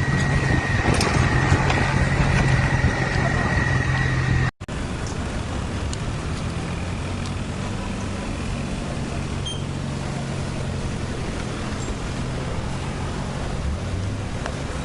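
Steady vehicle engine hum and street noise, with a high steady tone over the first few seconds. The sound cuts out for an instant about four and a half seconds in, then goes on as similar steady engine and traffic noise.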